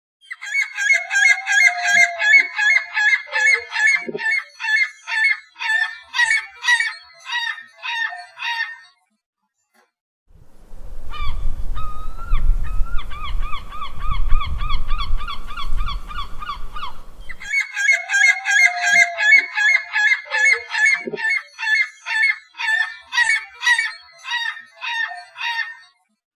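Herring-type gull calls: a long run of rapid, repeated laughing cries, about three a second, that fades out, then after a short silence a lower-pitched gull calling steadily over a low rumble, then the first run of cries again.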